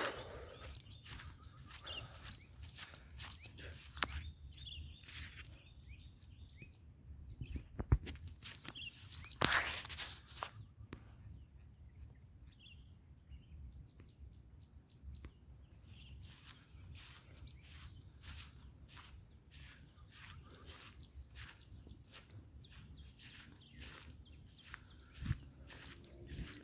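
Quiet outdoor ambience: a steady high insect drone with scattered light ticks and rustles. A sharp crack comes about eight seconds in, followed a moment later by a louder rustling burst.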